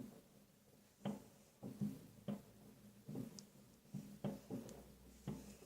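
Distant fireworks going off: faint, irregular thuds and pops, about a dozen in a few seconds, heard from indoors.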